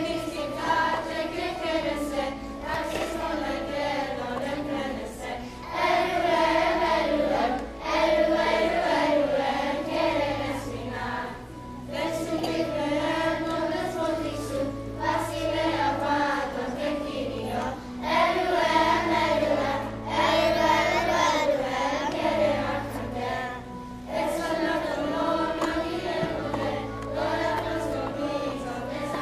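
Children's choir singing a Christmas carol, phrase after phrase with short breaks for breath, over low held accompaniment notes.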